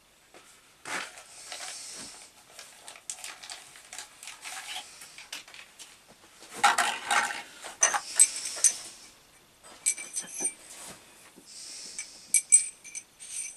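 Steel tools and small metal parts clinking and rattling as they are rummaged through and handled to get a reamer out. There is a louder clatter about halfway through, then several sharp, ringing metal clinks.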